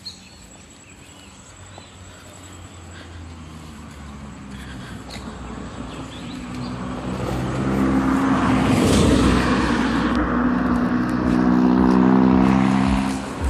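A motor vehicle drawing closer on the road, its engine hum growing steadily louder over several seconds and then holding loud. Faint bird chirps sound in the first couple of seconds.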